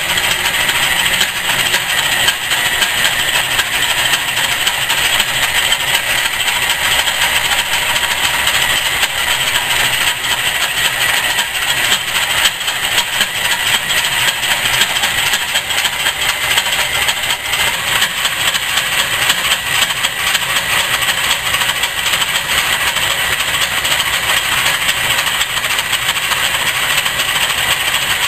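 Rockford metal lathe running under cut while a twist drill bores into the end of a steel part turning in the chuck. It makes a steady, loud cutting noise with a fast fine rattle.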